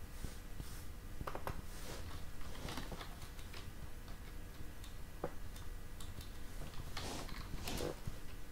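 Typing on a computer keyboard: irregular keystroke clicks in short scattered runs, with a busier run near the end.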